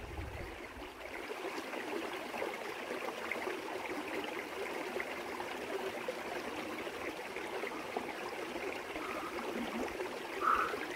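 Small stream trickling and babbling steadily as it runs through a rock pool in a stream bed.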